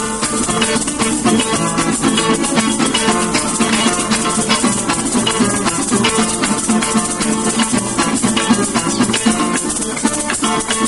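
Venezuelan folk music: plucked string instruments, such as bandola and cuatro, played with maracas shaking a steady, quick rhythm.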